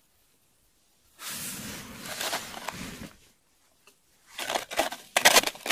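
Crunching and rustling for about two seconds, then, after a short pause, a louder run of sharp clicks and scrapes as a plastic-disc pike tip-up with its spool and flag spring is handled and set over an ice hole.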